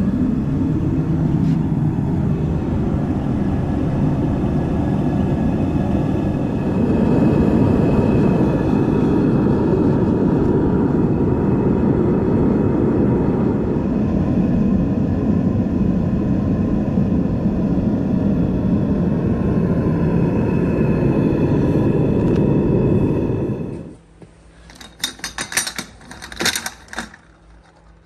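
Gas burner of a small metal-melting furnace running with a loud, steady rushing noise, which stops abruptly about four seconds before the end. A run of sharp clicks and clatter follows.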